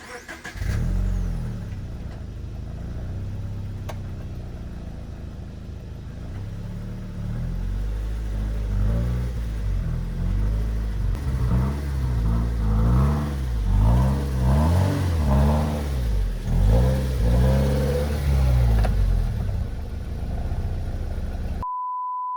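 Car engine idling, then revved up and down over and over, the pitch climbing and dropping several times. Near the end it cuts to a steady high beep tone lasting about a second.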